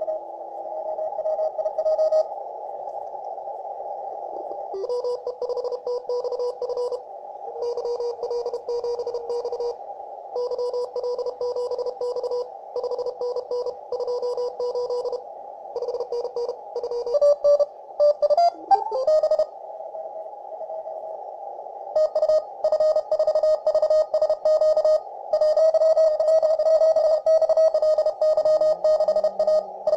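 FlexRadio FLEX-1500 software-defined receiver on the 20-metre CW band: Morse code signals beep on and off over a narrow band of steady hiss. A little past the middle, a tone sweeps upward in pitch as the receiver is tuned across to another station, whose Morse then continues at a slightly higher pitch.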